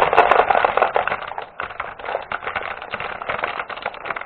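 Potion Explosion game marbles being poured, a dense clicking rattle that thins after about a second into scattered clicks as the marbles roll and settle into the marble dispenser.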